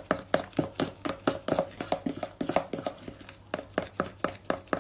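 Hand whisk beating runny cake batter in a bowl: quick, regular clicks of the wires striking the bowl, about four a second.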